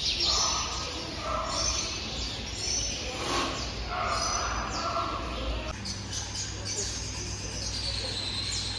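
Indistinct background voices mixed with bird chirps, repeating in short patches about once a second; about two-thirds of the way in, a steady low hum takes over.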